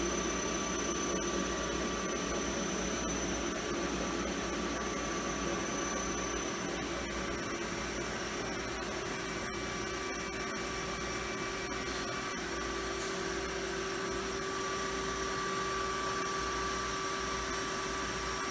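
Star SST-16 CNC Swiss-type lathe running its machining cycle: a steady machine hum and whine of several fixed tones over an even hiss, with a few faint ticks.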